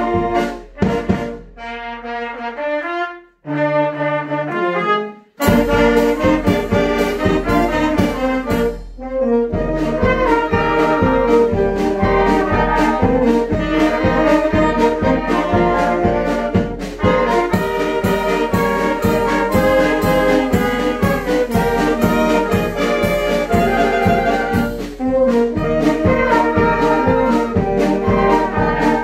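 Children's brass band playing: a few held brass chords broken by short pauses, then about five seconds in the full band comes in with a steady, evenly spaced drum beat under the brass.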